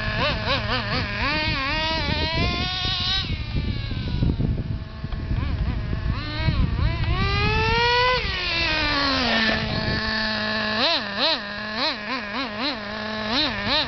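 Traxxas Jato RC stadium truck's small TRX 2.5 nitro engine revving up and down as it drives, with one long rising rev about halfway through that drops back to idle. Near the end come quick short throttle blips.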